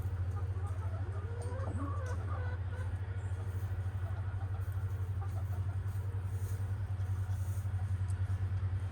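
Hens giving a few soft clucks and murmurs, mostly in the first few seconds, over a steady low hum that is the loudest sound throughout.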